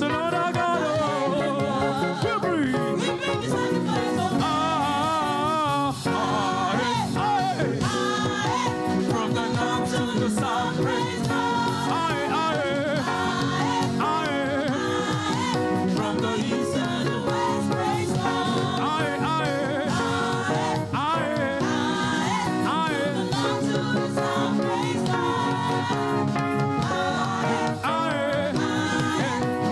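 Live gospel praise music: voices singing with vibrato over steady band accompaniment.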